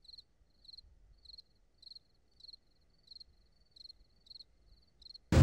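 Faint cricket chirping, short pulsed chirps repeating about twice a second. Just before the end, a sudden loud rush of wind and surf noise cuts in and drowns it out.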